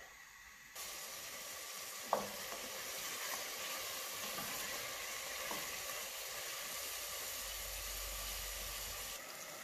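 Chopped onions frying in butter ghee in an aluminium pressure cooker, a steady sizzle that comes in about a second in, stirred with a wooden spoon. One sharp knock about two seconds in.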